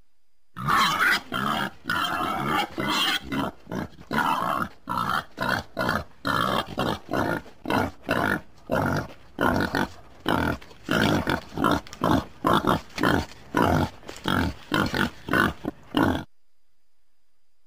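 Wild boar grunting in a long series of short, rough grunts, about two a second, which stop near the end.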